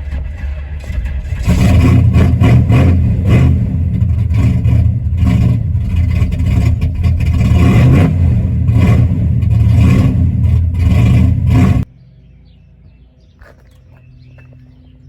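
Loud Camaro engine running just after a jump start, with a pulsing exhaust beat. It rises to a louder, revving level about a second and a half in. It stops abruptly about twelve seconds in, leaving a faint low hum and a few bird chirps.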